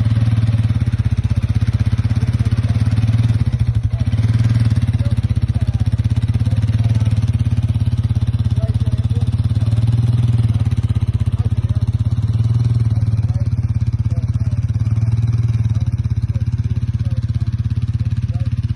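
An engine running steadily under load while it pulls a sunken boat on a tow rope, a low, even drone that swells slightly now and then.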